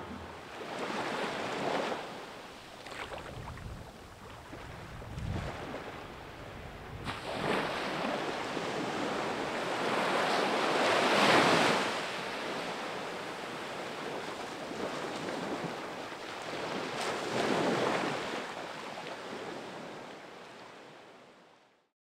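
Small waves washing up onto a sandy beach, the surf swelling and falling back in several surges, loudest about halfway through, then fading out near the end.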